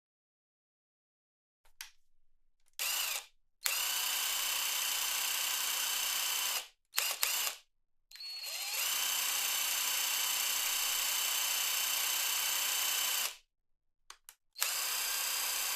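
Cordless drill motor run in several trigger pulls: short blips, then long steady spins at constant speed, one starting with a brief rise in pitch, with clicks between runs.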